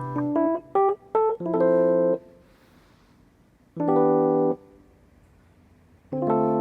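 Background music on an electric piano or keyboard: a quick run of single notes, then short held chords separated by pauses of about two seconds.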